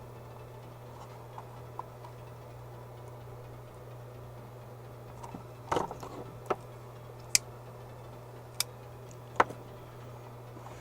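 Sharp clicks and taps of small hand tools and wires being handled on a workbench: a short cluster of knocks about halfway through, then four single crisp clicks roughly a second apart. A steady low hum runs underneath.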